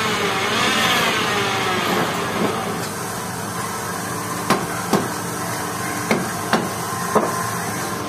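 Wood lathe spindle whining and falling in pitch as it slows down. Then a hammer knocks a square wooden blank onto the lathe centres, five sharp strikes in quick pairs about halfway through.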